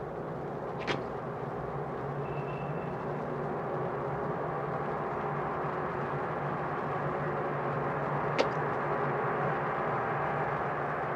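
A steady low hum with hiss, slowly growing louder, broken by two sharp clicks, about a second in and near eight seconds in.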